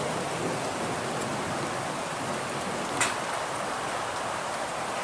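Steady rushing background noise, with one sharp click about three seconds in.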